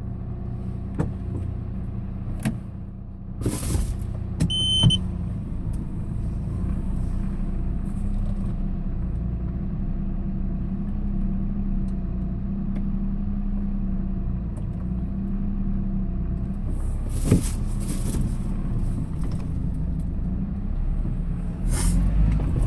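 Vehicle engine and road noise heard from inside the cab while driving: a steady low hum with a few knocks and rattles, and a short electronic beep about four and a half seconds in.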